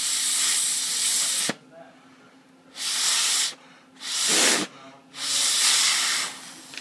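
Four puffs of breath blown hard through a drinking straw, each a loud hiss, aimed at the pulley wheels of a Shimano Dura-Ace 9070 rear derailleur to spin them and test how freely the stock pulleys turn. The first puff is the longest and the third the shortest.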